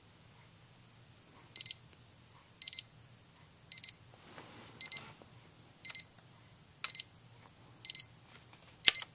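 iHome clock radio alarm beeping: a short, high-pitched cluster of beeps about once a second, eight times, with a sharp click near the end.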